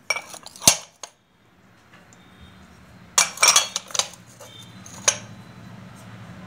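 Small white crockery bowls clinking against each other and the large serving bowl they are nested in as a hand lifts and sets them down. One cluster of clinks comes at the start, a second a little after three seconds, and a single clink about five seconds in.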